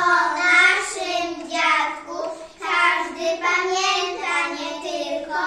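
Young children singing a song in short phrases, with held notes and brief breaths between them.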